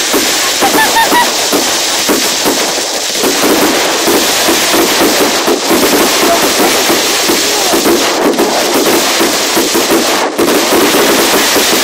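Fireworks crackling over the continuous chatter of a large outdoor crowd, a loud, dense, unbroken din.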